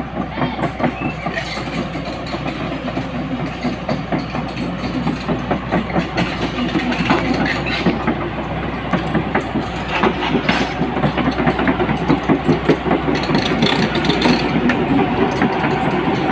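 Heavy diesel engine running with a fast, even chugging, getting a little louder toward the end.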